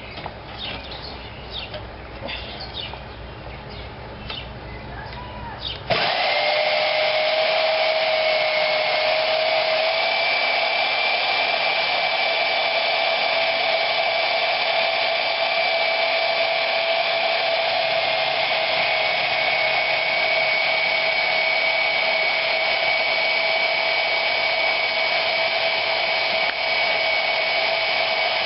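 Bandsaw running steadily with a high whine as it cuts steel angle iron. It starts abruptly about six seconds in, after a quieter low hum.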